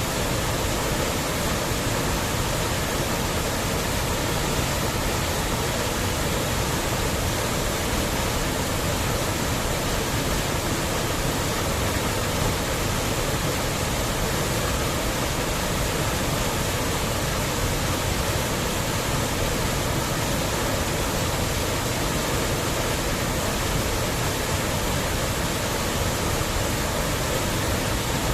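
Waterfall rushing steadily: a dense, unbroken roar of falling water.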